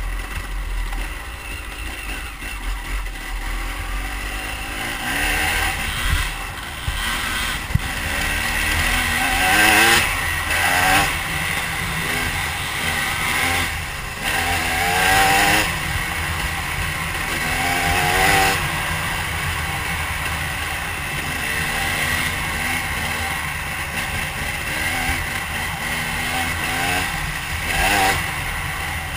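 KTM dirt bike engine running under way, its pitch repeatedly climbing and dropping as the rider accelerates and shifts through the gears.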